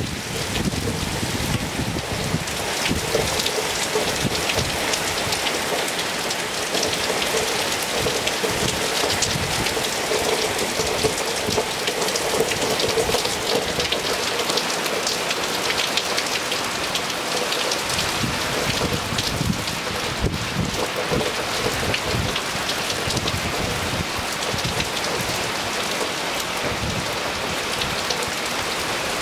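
Hard rain pouring onto a swimming pool, paved patio and wooden fence: a dense, steady hiss of countless drops spattering on water and stone.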